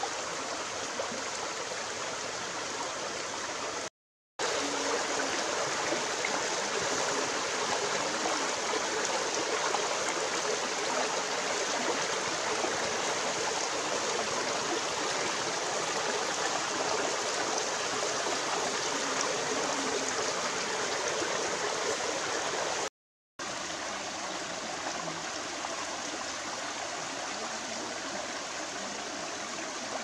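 Shallow rocky stream running steadily, an even rush of water. It cuts out to silence twice, briefly, and is a little louder in the stretch between those two breaks.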